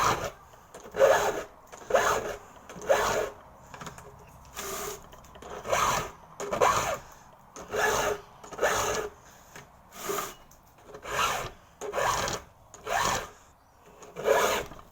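A 2-in-1 chainsaw file guide, its round file and flat file rasping across the saw chain's cutter teeth and depth-gauge rakers, is pushed in steady strokes at about one a second.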